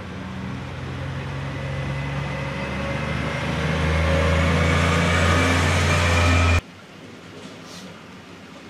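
Diesel shunting locomotive of the Rhaetian Railway, no. 119, with its engine running in a steady low note that grows louder. About six and a half seconds in, the sound cuts off suddenly, leaving a much quieter background.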